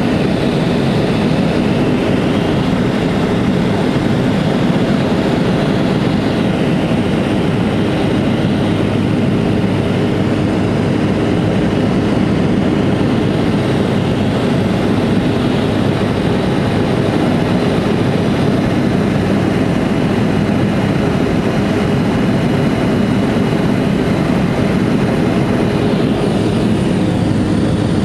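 Steady engine and propeller noise of a Pilatus PC-6 Porter ski-plane in flight, heard from inside the cabin. It includes a constant low hum and a faint high whine.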